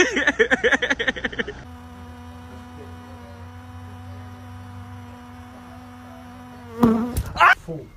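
A hoverfly hovering in place: its wings give one steady low buzz with overtones that holds for about five seconds. Before it comes a second and a half of a warbling pitched sound, and near the end a brief loud burst breaks in.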